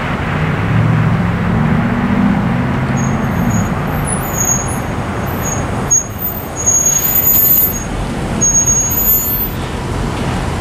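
Steady outdoor rumble and hiss of road traffic idling at a crossing, with a low engine drone for the first few seconds and thin high-pitched squeals that come and go in the middle.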